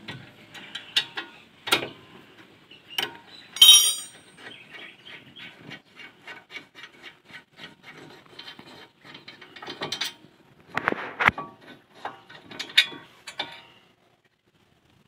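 Metal clicks and clinks as a Toyota Vios NCP93's front brake caliper and its slide pins are worked loose and taken off the hub, with a sharp ringing clink about four seconds in, a run of quick, even ticks after it, and a few heavier knocks near the end.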